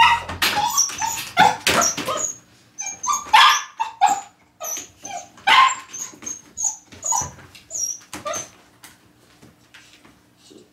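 Large-breed puppy whining and yipping excitedly in quick short cries, thinning out near the end; the whining seems to mean it needs to go to the toilet.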